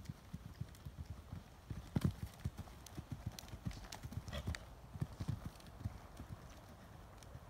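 Horse's hooves cantering on an arena surface, a run of dull thuds in a rolling rhythm, loudest about two seconds in, as the horse takes a small show jump.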